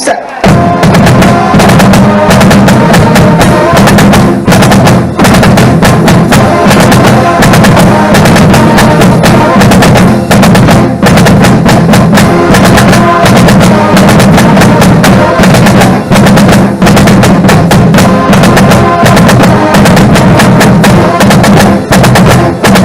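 Marching drumline playing a fast, dense cadence at full volume, with snare and tenor strikes over a heavy low pulse of bass drums. It starts about half a second in.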